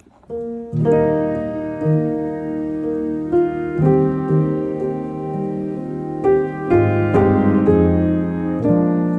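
Background music: a piano playing a steady run of chords, a new chord struck about every second.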